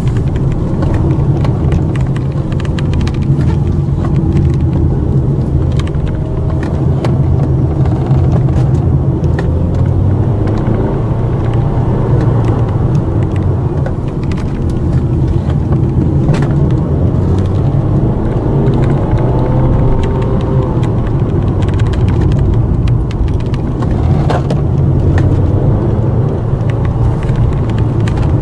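Road and engine noise of a car heard from inside the cabin while driving: a steady low rumble, with faint rising and falling tones above it.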